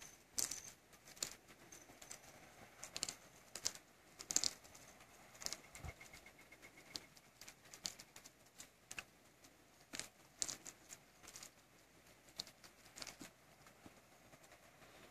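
Red fox chewing a chicken thigh and crunching through the bone: irregular sharp cracks and crunches that come thick and fast at first, then thin out near the end.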